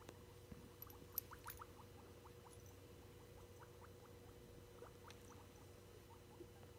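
Guinea pig making soft, short rising squeaks, bunched together about a second in, then sparser and fainter. A faint steady hum lies underneath.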